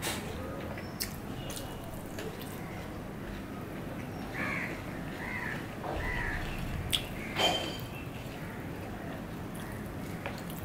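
Close-up eating sounds of a man eating chicken khichuri with his fingers: soft chewing with scattered wet mouth clicks and smacks, two sharper ones a little past the middle, over a steady background hiss.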